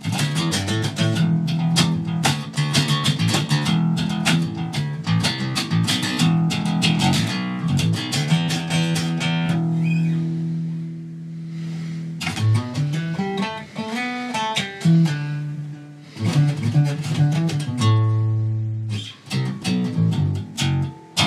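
Unaccompanied Jackson electric bass played fingerstyle: fast runs of notes plucked with one finger working back and forth across the string. About halfway through a note is left to ring. Then come more runs, with a slide up and back down, and a held low note near the end.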